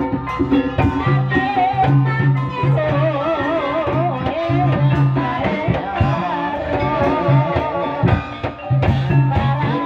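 Live Javanese gamelan music for an ebeg dance: steady drum strokes and sustained low notes under a wavering high melody line.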